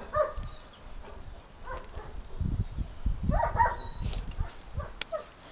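Dog whining in a few short, soft whimpers, with some low thumps in the middle.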